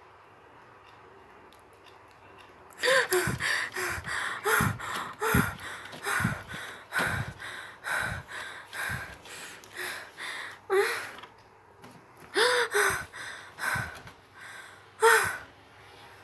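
A high female voice gasping and breathing hard in short, quick gasps, about one or two a second, each falling in pitch. The gasps start about three seconds in, after a faint steady hum.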